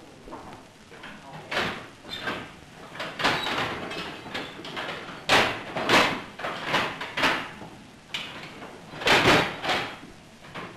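Signal box mechanical lever frame worked by hand: steel levers being pulled over and thrown back, giving an irregular run of metallic clanks and thumps, about a dozen. Several come in quick pairs, and the loudest is about nine seconds in.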